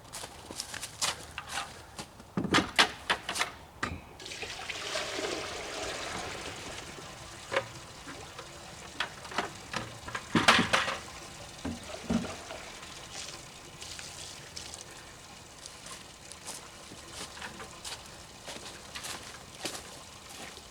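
Maple sap poured out of a bucket for a few seconds, between sharp knocks and clunks of buckets being handled. The loudest knock comes about halfway through, and small clicks and taps follow.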